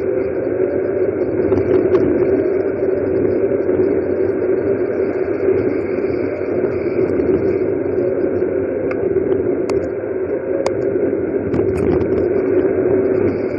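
Steady, muffled wind and tyre-on-asphalt rush from a camera riding on a bicycle speeding downhill, with a few sharp ticks late on.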